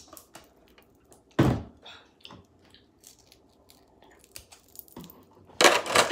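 Snow crab shell being cracked and picked apart by hand, with small snapping clicks, one heavy thump about a second and a half in, and a loud run of cracking and crunching near the end.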